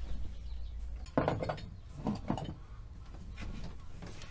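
Household things knocking and clattering as they are handled: a sharp clatter about a second in, then a few more knocks a second later.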